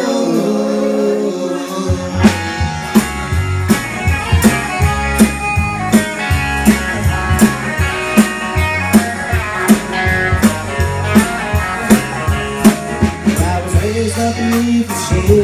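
Live country-rock band playing an instrumental passage: electric guitars and bass with a drum kit, which comes in with a steady beat about two seconds in.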